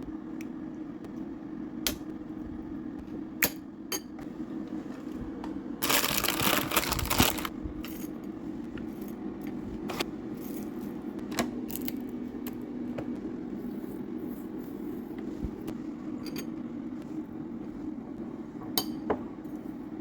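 Kitchen food-prep sounds: scattered clinks and taps of utensils against glass and dishes over a steady low hum, with a louder rattling rush lasting about a second and a half about six seconds in.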